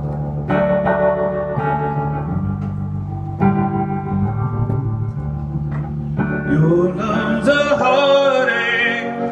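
A live band playing a song's introduction: held keyboard or organ chords that change every second or two, joined near the end by a wavering melody line.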